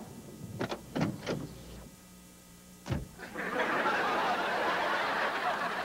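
A few short bursts of laughter, then a sharp click about three seconds in, followed by a steady rushing noise.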